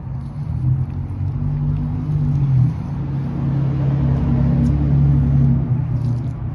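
A motor vehicle's engine running steadily, a low hum that swells and eases slightly.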